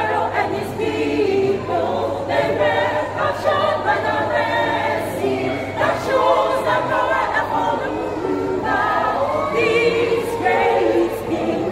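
A 27-voice church choir singing in parts, on the verse 'Forget not Pharaoh and his people, they were captured by the red sea'.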